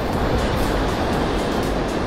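Background music with a steady beat, over a steady rush of surf.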